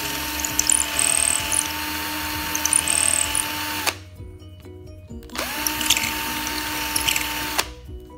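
Small electric drill boring into the end of a wooden dowel: it spins up, runs steadily for about four seconds, stops, then runs again for about two seconds.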